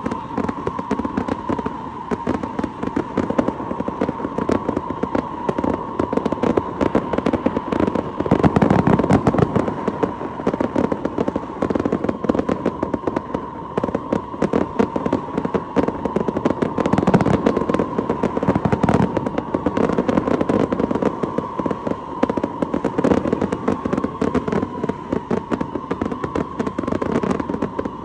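Fireworks going off without a break: a dense run of bangs and crackles from bursting shells and sparks, heaviest about eight to ten seconds in and again around seventeen seconds.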